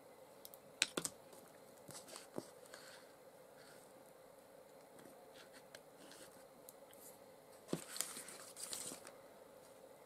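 Wax paper crinkling and small clicks and taps as a collage card clipped with wooden clothes pegs is handled and moved on it, with sharp clicks about a second in and the loudest crinkling about eight seconds in.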